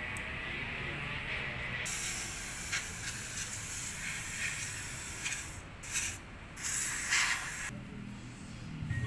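Aerosol carburetor cleaner hissing out of its straw onto oily VTEC solenoid parts, cleaning them before new seals go in. A few seconds in comes one long spray of about four seconds, then two shorter bursts, and the spraying stops near the end.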